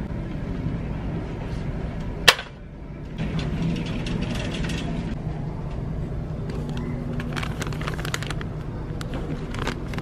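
Steady low store background hum with one sharp click about two seconds in. Later come a few seconds of crinkling and small clicks from plastic floss-pick packets being handled.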